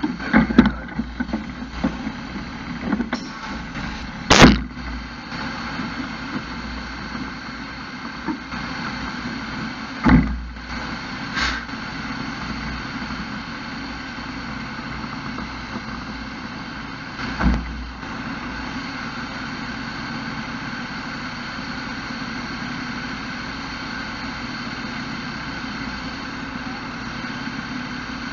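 Fire engine idling steadily. Over it come a few sharp knocks and thumps, the loudest about four seconds in and others around ten and seventeen seconds.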